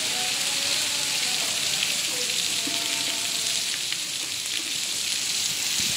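Heavy rain in a sudden downpour: a steady, dense hiss of rain, with water pouring off the roof edge.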